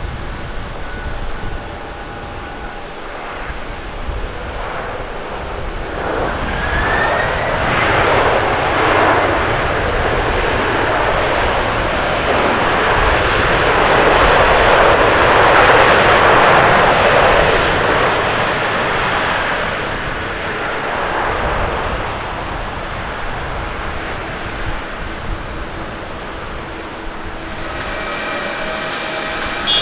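Jet engines of a Japan Airlines Boeing 767-300(ER) on its landing rollout after touchdown: the engine noise swells several seconds in, with a brief rising whine, runs loudest in the middle, then fades as the airliner slows down the runway.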